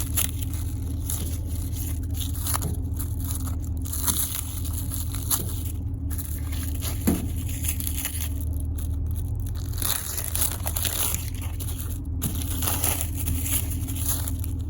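Packaging of a 1,000-firecracker roll being handled and torn open: crinkling, crunching and tearing of wrapping, over a steady low hum.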